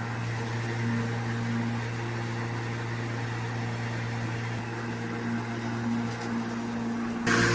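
Bosch cordless lawnmower running, its electric motor and blade giving a steady hum. About seven seconds in, a louder rushing noise comes in suddenly over the hum.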